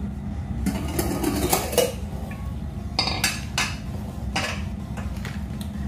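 Stainless-steel kitchen vessels clinking and knocking as they are handled and set down on a granite countertop, a scatter of separate knocks over a steady low hum.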